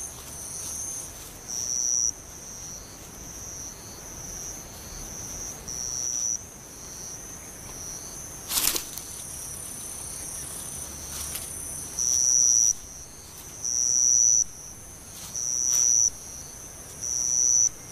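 Insects singing: a high, pulsing call repeated about every one and a half to two seconds, growing louder in the last third, over a steady high hiss of other insects. One sharp click about halfway through.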